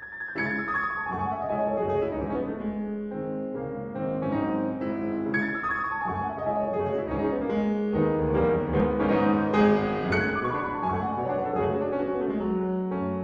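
Instrumental intro music led by piano, with cascading runs of notes that fall in pitch, one starting about every five seconds.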